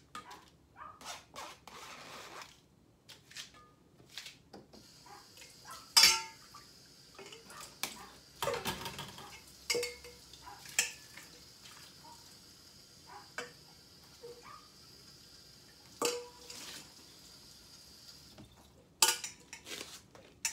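Metal spoon scraping and tapping against a stainless steel strainer and mixing bowl while cucumber juice is strained, in scattered clinks and knocks, the loudest about six seconds in and near the end. A steady trickle of juice runs through for most of the middle.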